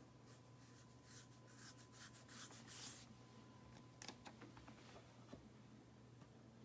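Near silence: faint rustling with a few light clicks about four seconds in, over a steady low electrical hum.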